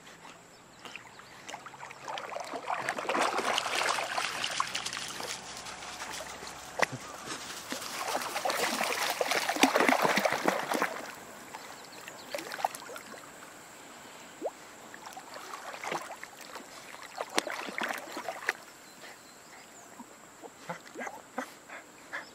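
Water splashing and sloshing as dogs paddle and wade through shallow lake water, in two louder spells, a few seconds in and around the middle, then quieter with scattered small splashes.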